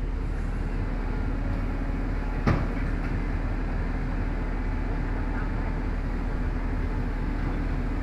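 Heavy diesel machinery engine running steadily with a low hum, and a single sharp clank about two and a half seconds in.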